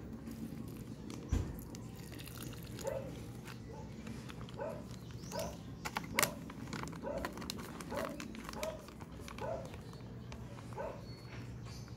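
A dog giving short, repeated whining yelps, one every half second to a second from about three seconds in, over scattered light clicks and rustles.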